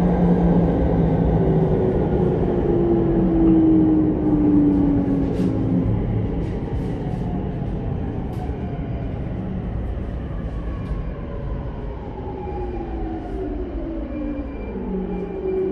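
Sotetsu 10000 series train's Mitsubishi IGBT-VVVF inverter whining in falling pitch as the train slows, over the rumble of wheels on the rails; near the end the whine settles into a steadier lower tone.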